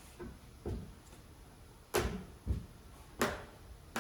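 A heavy screen panel being lifted and dropped down into the cutout slots of its leg: a few dull knocks and two sharp clacks.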